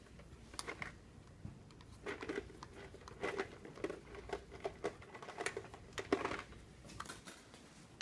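Faint, irregular small clicks and scrapes of a screwdriver tightening the terminal screw on a plastic lampholder while the fixture and its wire are handled.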